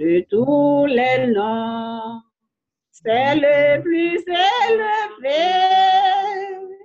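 A single voice singing a slow hymn without accompaniment, with long held notes. The sound drops out completely between some phrases.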